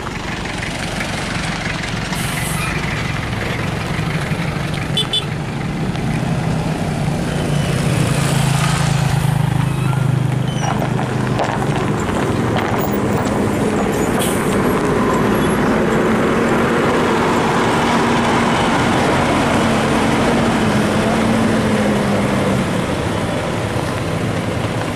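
Heavy vehicle's engine running steadily under load, gradually growing louder and rising in pitch, then dropping a little near the end. A few brief hisses come through.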